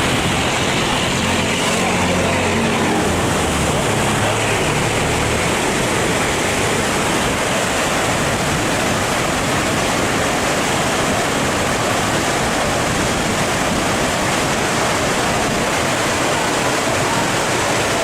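Water rushing hard and steadily through a dam's sluice gates. A boat engine's low drone sits under it in the first few seconds and fades away.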